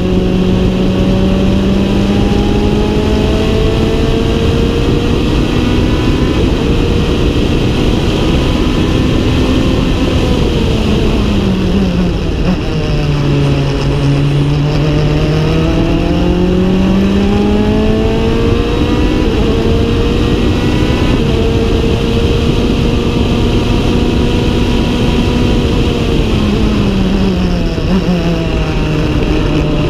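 Norma M20F sports-prototype engine heard from the open cockpit at speed, over a steady rushing noise. The engine pitch climbs slowly, falls as the car slows about eleven seconds in, climbs again and holds, then falls once more near the end.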